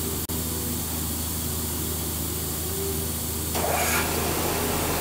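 Vertical milling machine running with a steady mechanical hum; about three and a half seconds in the sound turns louder and hissier.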